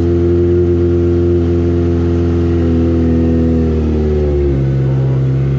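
Kawasaki Ninja ZX-25R's 249 cc inline-four engine, breathing through an Akrapovic exhaust, held at raised revs and then dropping back toward idle about four seconds in.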